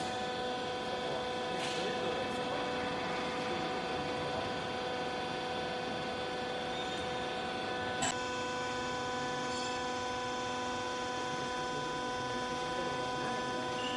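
Hydraulic baler's electric motor and pump running with a steady hum and whine of several held tones. A single click about eight seconds in, after which a lower tone joins the hum.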